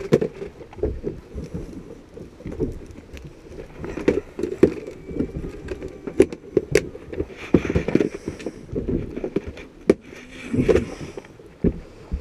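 Irregular knocks, clunks and clicks of gear being handled aboard a small fishing boat, some sharp and close, with a few busier clattering spells.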